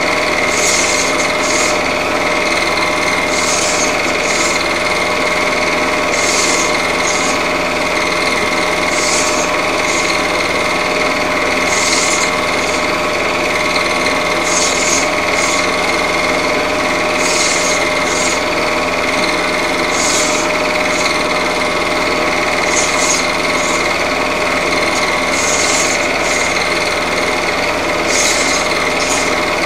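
Cine film projector running: a steady mechanical whirr with a constant high whine, and short hissy bursts every second or two.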